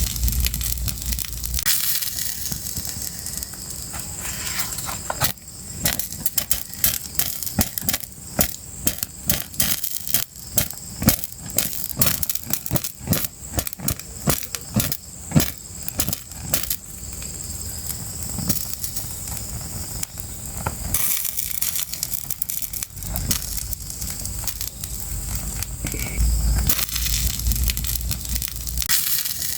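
Fire crackling: many sharp pops and snaps over a steady hiss, coming thickest in the middle, with a low rumble near the start and again near the end.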